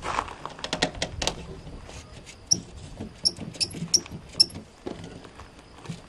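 Brittle plastic fridge vent grille being worked loose from its frame by hand, plastic rubbing on plastic: a string of small sharp clicks and squeaks, the loudest a little past the middle.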